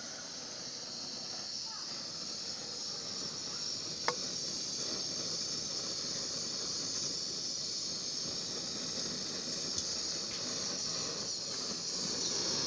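Steady high hiss of a portable gas burner running under an iron karahi, with one sharp click about four seconds in.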